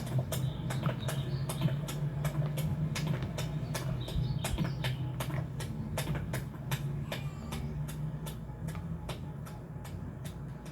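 A steady low mechanical hum under rapid, irregular sharp clicks and cracks, several a second, thinning out and getting quieter near the end.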